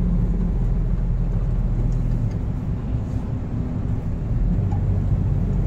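Steady low rumble of a car's engine and road noise, with a slight dip in level midway.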